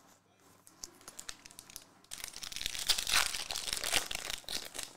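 Foil wrapper of a Topps Chrome Formula 1 trading-card pack being torn open by hand. Faint handling clicks at first, then loud crinkling and tearing from about two seconds in.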